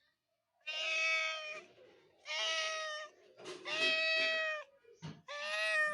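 A cat meowing: four long, drawn-out meows of about a second each, each held at a steady pitch, with short pauses between them.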